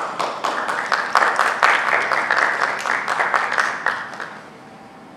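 Audience applauding: many hands clapping densely, dying away about four seconds in.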